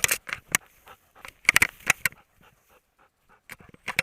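Hunting dog panting close by: quick runs of short breaths with a pause of about a second in the middle.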